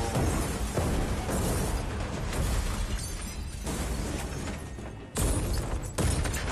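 Action-film soundtrack: a dramatic score under heavy effects, broken by two sudden loud explosion blasts about five and six seconds in.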